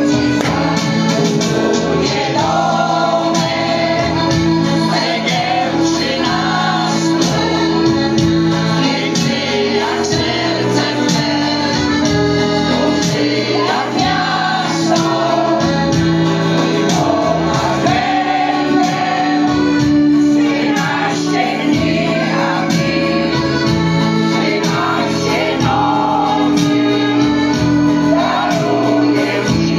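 Mixed choir of older men and women singing a song together, accompanied by an electronic keyboard holding sustained chords and bass notes.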